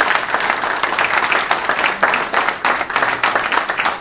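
Audience applauding, a steady run of many hands clapping.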